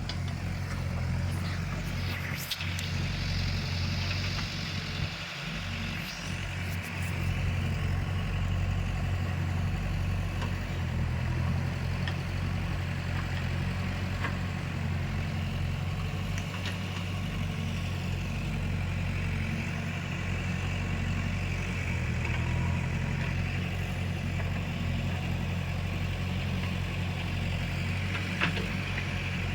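Diesel engine of a backhoe loader idling steadily, with a few faint clicks.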